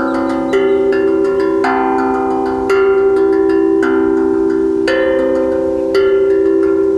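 Slow, calm melody on a tuned steel drum: single notes struck about once a second, each ringing on and overlapping the next.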